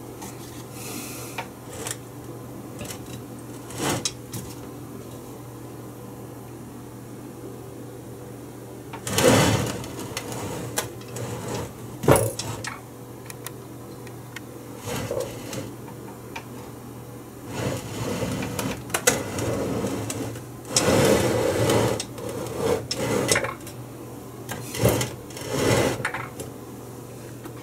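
Irregular bursts of rustling and handling noise, some with sharp knocks, over a steady low hum.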